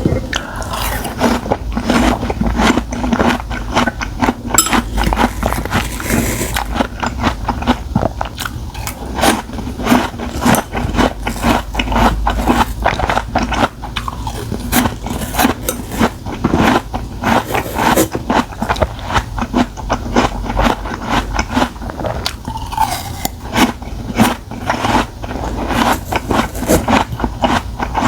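Close-miked eating: steady chewing with many wet clicks and crunches, and a utensil scraping against a dish.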